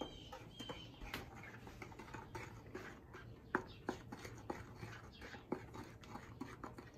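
Wooden spoon stirring flour into a stainless steel saucepan of chocolate batter: soft scraping with irregular light clicks and taps of spoon and tipped metal bowl against the pan, a few sharper ones in the middle.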